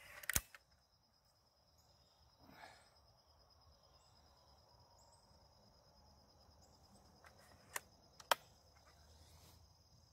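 Sharp mechanical clicks of a B3-1 .177 air rifle being cocked and loaded between shots: one click near the start, a soft rasp about two and a half seconds in, and two more clicks about eight seconds in. A steady high insect drone runs underneath.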